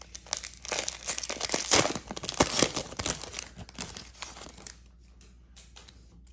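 Wrapper of a jumbo pack of 2013 Bowman baseball cards being torn open and crinkled. After about four and a half seconds it dies down to faint rustling as the cards are handled.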